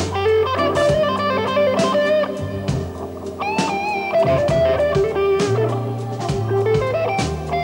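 Live slow blues: an electric guitar solo of single notes with string bends, one clear bend about halfway through. Behind it are sustained low Hammond B3 organ bass notes and drums with cymbals.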